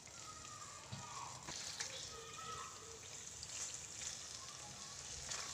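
Macaroni in a watery onion-tomato sauce simmering and bubbling in a steel pan, with a wooden spatula stirring it and scraping against the metal a few times.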